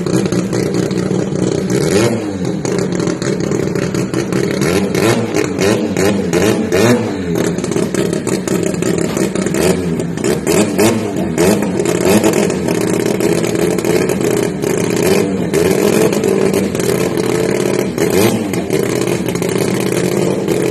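Mazda rotary engine of a drag car running while parked, with a few short revs spread through and frequent sharp crackles.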